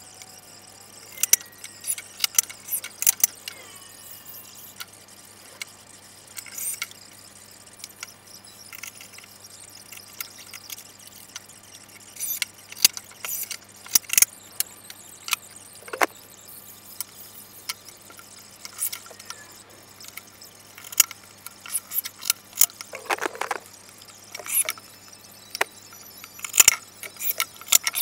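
Scattered clicks, taps and clattering knocks as wooden parts and hand tools are handled while plywood cabinet boxes are assembled at a workbench, over a steady low hum.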